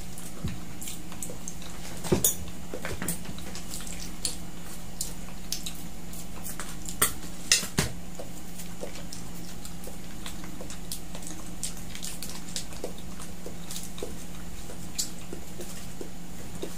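Scattered clicks, taps and light clatter of a meal at a table: utensils and hands against plastic bowls and food containers, and food packets being handled. A few louder knocks come about two seconds in and again around seven to eight seconds in, over a steady low hum.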